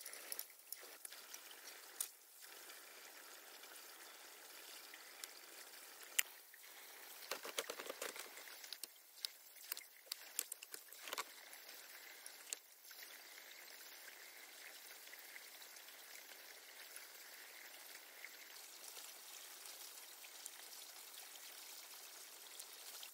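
Water running or trickling steadily, with scattered sharp clicks and knocks, thickest about seven to eleven seconds in.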